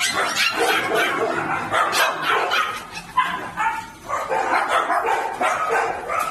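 A litter of young puppies yapping and yelping, many short high-pitched calls overlapping, with a brief lull about three seconds in. The keeper takes loud calling like this as a sign the puppies are lively and doing well.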